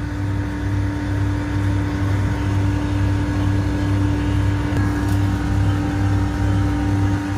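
Steady mechanical hum of a running motor, with a low throb that pulses evenly.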